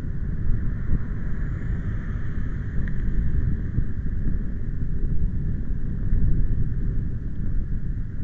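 Wind buffeting the microphone in cold, windy weather: a heavy, unsteady low rumble with a fainter steady hiss above it.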